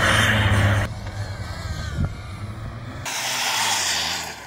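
SUV driven hard over loose dry dirt: the engine runs under load while the tyres throw dirt and sand. The sound drops suddenly about a second in and changes again about three seconds in to a mostly hissing spray as the shots cut.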